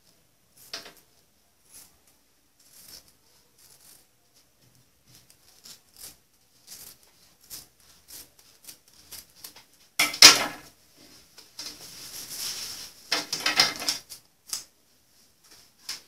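Scissors cutting through fabric. Soft scattered snips and clicks come first, then louder cutting and rustling of the cloth from about ten seconds in.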